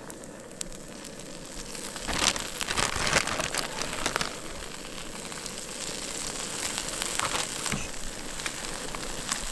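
Steady sizzle of sourdough bread frying in olive oil in a cast-iron skillet on a propane camp stove, with a plastic shredded-cheese bag crinkling several times as cheese is sprinkled on.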